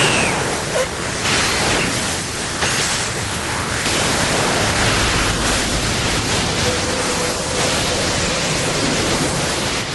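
A long, steady rushing noise from an animated fight's sound effects, like a sustained energy blast, with a faint held tone between about seven and nine seconds in.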